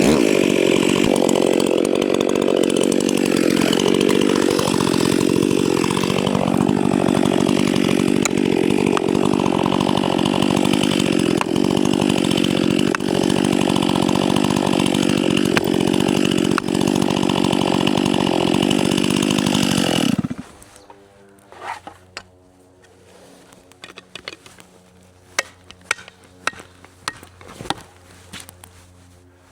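Stihl MS 261 two-stroke chainsaw cutting into a tree trunk at full throttle, holding steady revs with small dips, then cut off suddenly about two-thirds of the way in. A few sharp knocks follow.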